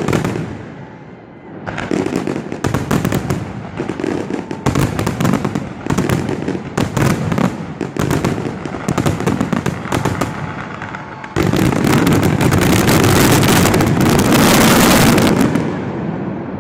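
Fireworks bursting overhead, many sharp bangs in quick succession, then about eleven seconds in a louder, dense unbroken barrage of bangs and crackling.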